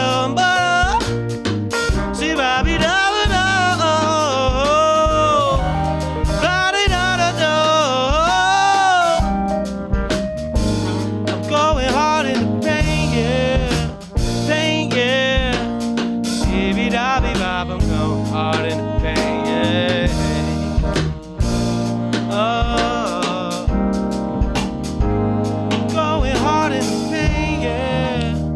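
Live jazz-inflected band playing an instrumental stretch: drum kit keeping a steady beat under bass guitar and keys, with a sliding, wavering lead melody on top, strongest in the first ten seconds.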